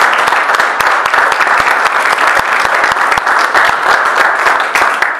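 Audience applauding with dense, steady clapping that dies away right at the end.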